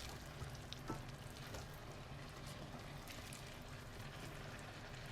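A pan of sauce simmering with a faint steady sizzle, with a few soft clicks of a utensil as pasta is tossed into it.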